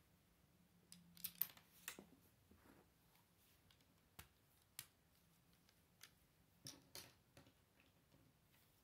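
Plastic Lego bricks clicking and clattering as pieces are handled and pressed together: a quick cluster of sharp clicks about a second in, single clicks around four and five seconds, and another cluster near seven seconds.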